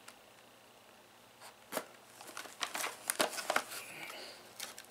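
Seals on the ends of a small speaker box being cut and torn open: a click about two seconds in, then crinkling and tearing packaging with sharp clicks.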